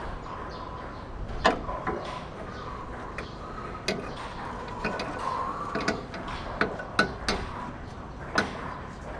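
Hand tools and metal parts clinking and knocking at irregular intervals, about eight sharp strikes, while a shock absorber is being fitted on the car.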